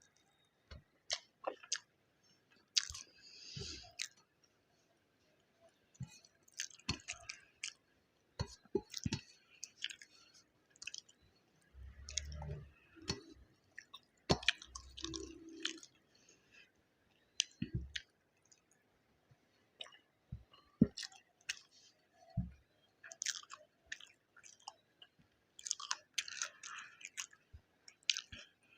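Close-miked chewing of egg biryani with gravy and raita: irregular wet mouth clicks, smacks and squelchy bites, with a few low thuddy sounds near the middle.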